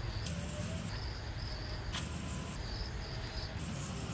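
High-pitched insect trilling that comes and goes in bursts about every second, over a steady low hum.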